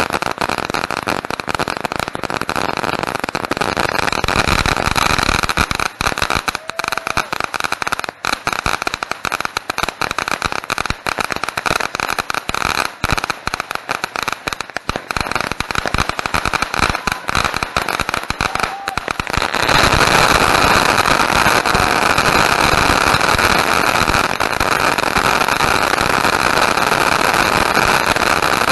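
Fireworks going off close by: a dense run of rapid crackling pops, then from about twenty seconds in a louder continuous hissing spray of sparks.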